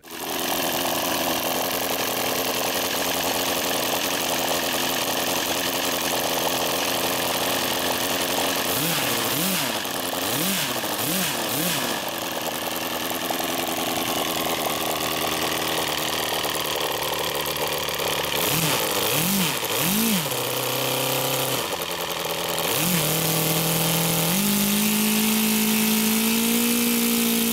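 O.S. FF-320 Pegasus flat-four, four-stroke model aircraft engine running with its propeller. The throttle is blipped up and down several times around the middle. It then settles, steps up to a steady higher speed, and drops off at the very end.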